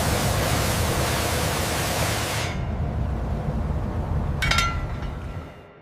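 A loud, even hiss that cuts in suddenly, loses its high end after about two and a half seconds and then dies away. One short ringing metallic clink comes about four and a half seconds in.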